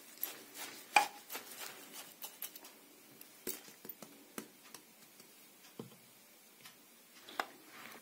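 A spoon stirring wet chopped mustard greens and spinach in a pressure cooker: soft rustling with scattered knocks of the spoon against the pot, the loudest about a second in.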